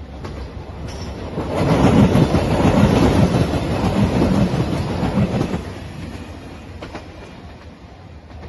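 JR Shikoku 2700 series diesel express train passing close by, its engines and wheels on the rails growing loud about a second and a half in, then fading after about five and a half seconds as it goes away.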